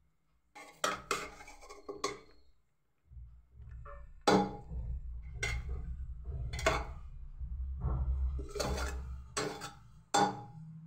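Metal spoon clinking and knocking against a cooking pot while serving cooked rice biryani, about nine irregular strikes over a low rumble.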